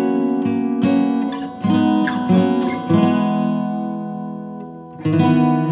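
Background acoustic guitar music: strummed chords at an easy pace, with one chord left to ring and fade before a fresh strum near the end.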